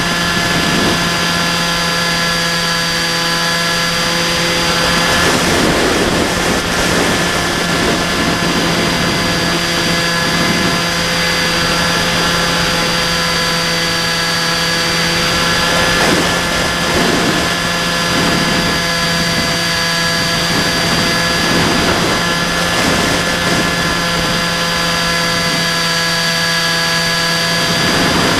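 Bixler 2 RC plane's electric motor and pusher propeller running at a steady throttle in flight: a constant whine made of several steady tones, over rushing air noise that swells now and then. Heard from an action camera carried on the plane.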